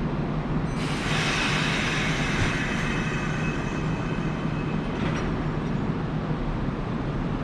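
Kintetsu electric train at the station: a rush of wheel and rail noise rises about a second in, with faint high whining tones in it, and fades after a couple of seconds over a steady low hum. A brief click comes about five seconds in.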